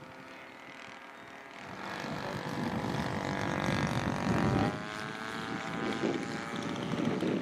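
Engine and propeller of a large radio-controlled scale WW1 biplane flying past low: the engine note grows louder over a couple of seconds, then drops in pitch as the plane passes about four and a half seconds in.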